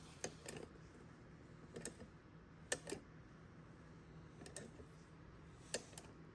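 Faint sharp clicks, mostly in pairs, repeating about every second and a half over a low steady hum.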